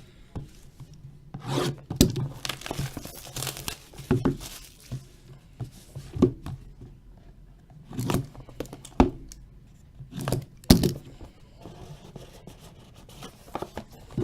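Trading card boxes being opened by hand: plastic wrap and cardboard tearing and crinkling, with scattered sharp snaps and rustles.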